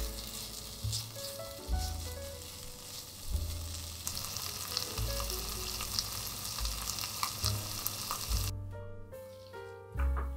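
Food frying in a pan, a steady crackling sizzle with a few light clicks; the sizzle stops abruptly about eight and a half seconds in.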